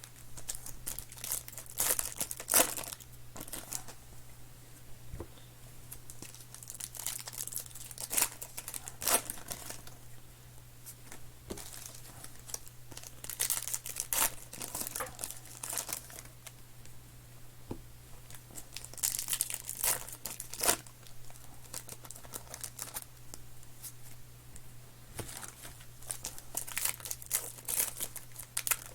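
Trading card pack wrappers being torn open and crumpled by hand, in irregular bursts of crinkling and tearing with short pauses between, over a faint steady low hum.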